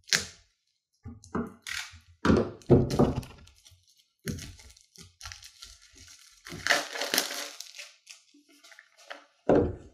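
Plastic shrink-wrap being slit with a box cutter and torn off a small cardboard game box: a sharp click at the start, then a run of crackling tears and crinkling plastic, and a thunk near the end.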